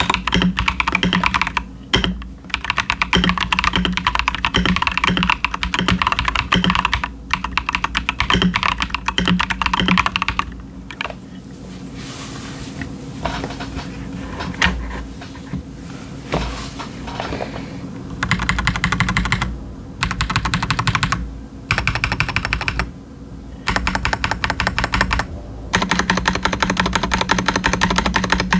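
Fast typing on an Akko 5075s mechanical keyboard with stock Bolsa Supply Techno Violet linear switches and doubleshot PBT keycaps: dense runs of rapid keystrokes in bursts with short pauses. The typing goes quieter for several seconds in the middle, then picks back up in quick bursts.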